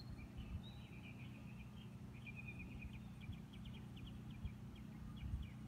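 Faint outdoor ambience: a steady low hum of distant generators running, with a series of short, high bird chirps over it.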